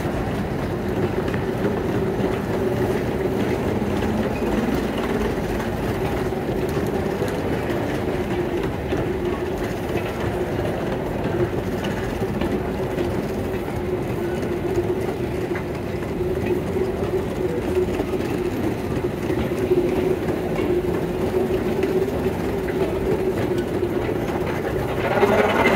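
Airport moving walkway running: a steady mechanical rumble and rattle from the moving treads under a constant low hum, a little louder near the end.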